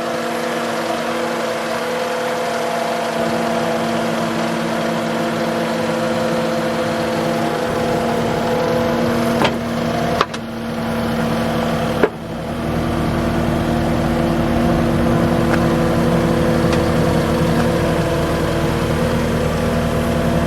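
Skid-steer engine running steadily at idle, with a few sharp clicks around nine to twelve seconds in, after which it runs a little louder. No hammer blows are heard.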